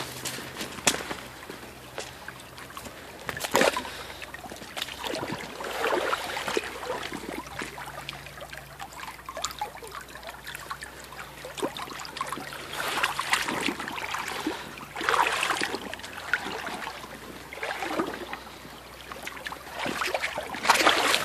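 Shallow creek water trickling over pebbles, with irregular sloshing swells every few seconds as feet wade through the water.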